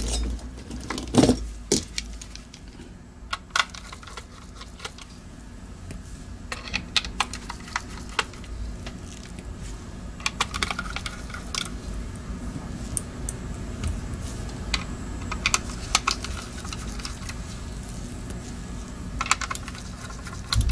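Small irregular clicks and taps of a Logitech G Pro Wireless mouse being taken apart by hand: a pick and a screwdriver working on its plastic shell and screws, and tiny parts set down. A louder knock comes about a second in.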